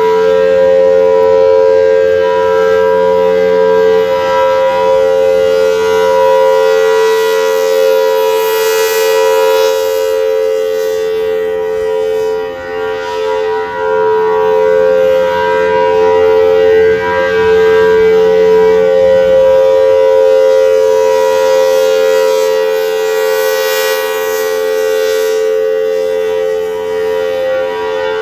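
Federal Signal Thunderbolt 1000T rotating outdoor warning siren sounding a steady alert tone: two close, unwavering pitches with no rise or fall. Its high overtones swell and fade twice as the rotating horn sweeps toward and away from the listener.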